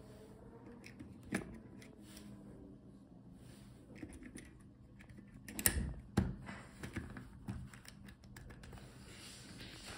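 Scattered small plastic clicks and knocks from a Mercedes-Benz W124 seat memory switch being handled and its top cover pressed onto the switch housing, with a few louder clicks a little past halfway.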